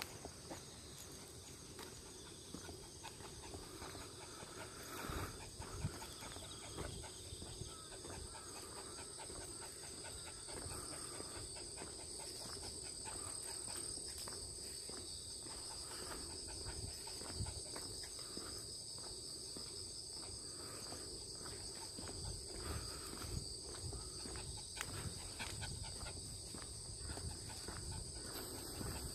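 Steady high-pitched insect chorus, with footsteps along a path.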